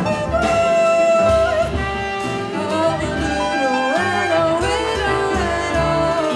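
Live jazz-pop band: a woman singing with trumpet and plucked double bass, the voice and horn in long, bending melodic lines.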